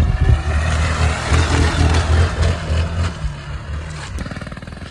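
Motorcycle engine running, its low drone dropping away about four seconds in.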